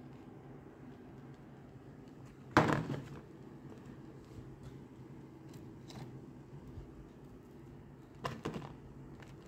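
Kitchen items being handled around a sandwich press and a plastic container: two short clattering knocks, one about two and a half seconds in and a softer one near the end, over a low steady hum.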